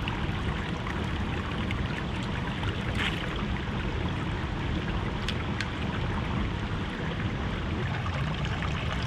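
Shallow creek trickling over rocks in a steady rush of running water, with a few faint clicks. Near the end a water bottle is held under the surface to fill.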